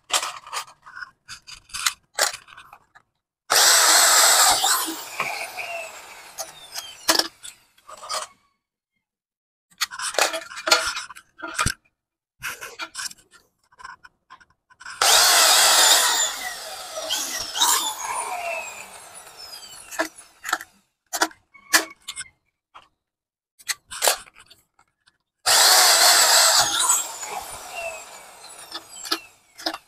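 Electric drill boring holes through aluminium box tubing in three short bursts, each trailing off. Between the bursts come sharp clicks and snaps from a hand pop-rivet gun setting rivets and from metal parts being handled.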